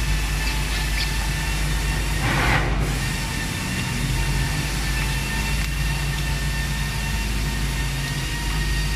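Steady loud drone of running machinery, with a constant low hum and thin steady whining tones above it, and a short hiss about two and a half seconds in.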